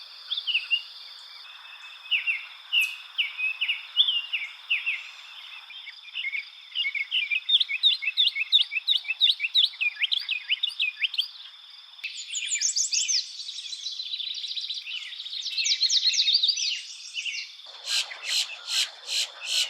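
Songbirds singing: quick series of short, high chirps and trills. The song pattern and the background change abruptly about 6, 12 and 18 seconds in, and from about 18 seconds on the notes come as sharp, evenly spaced calls, several a second.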